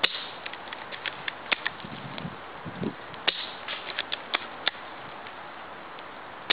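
JG/AGM VSR-10 spring-powered bolt-action airsoft sniper rifle being fired: three sharp snaps about three seconds apart, with lighter clicks between them as the bolt is cycled.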